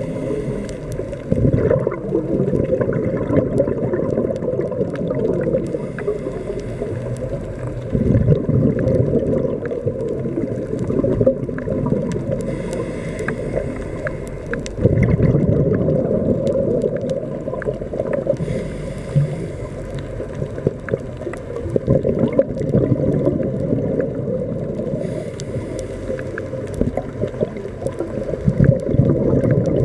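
Underwater scuba breathing through a regulator: a hissing inhale about every six seconds, each followed by a gurgling rush of exhaled bubbles, over steady water rumble heard through the camera housing.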